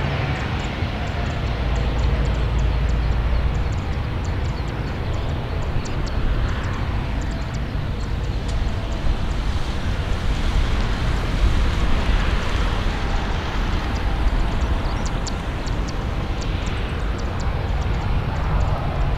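Boeing 737-800's CFM56 turbofan engines running as the airliner rolls out and slows on the runway after landing: a steady, low rumble.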